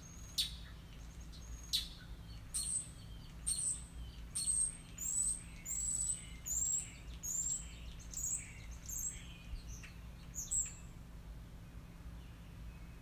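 A bird chirping: a series of short, high chirps, each falling in pitch, roughly one a second, stopping a couple of seconds before the end, over a steady low hum.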